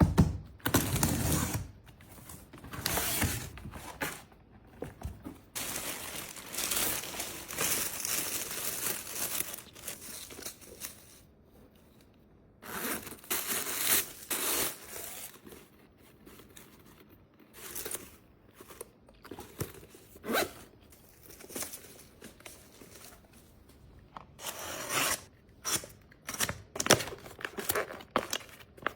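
Packaging being torn open and crinkled by hand: irregular rips and rustles, some long and some short, with brief pauses between them.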